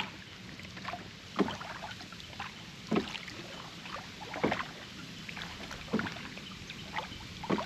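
Oars of a rowed boat working through calm water in a steady rhythm: a short splash-and-knock stroke about every second and a half over faint water hiss.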